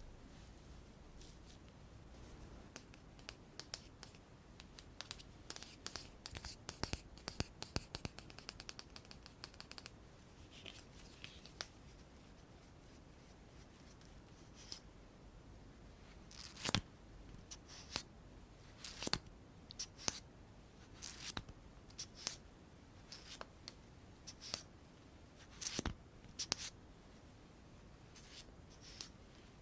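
Makeup tools and containers handled close to the microphone: a quick run of small clicks and taps, then, from a little past halfway, short scratchy strokes about once a second.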